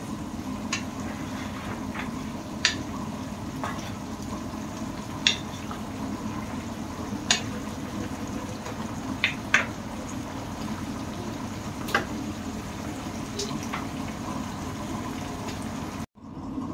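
Kitchen cooking sounds: a steady rushing noise, like something on the stove, with about ten sharp clinks and clicks of utensils or cookware scattered through it. The sound cuts out briefly near the end.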